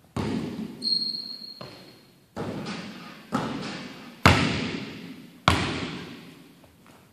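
Basketball thudding on a hardwood gym floor, six or seven irregular bounces that echo in the hall, the loudest about four seconds in. A brief high squeak about a second in.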